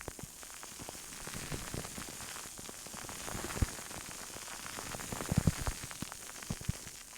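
Close-miked ASMR rubbing on a microphone: a steady scratchy hiss with scattered taps and soft thumps, the strongest cluster about five seconds in.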